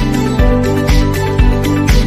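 Background music with a steady beat, about two beats a second, under sustained instrumental notes.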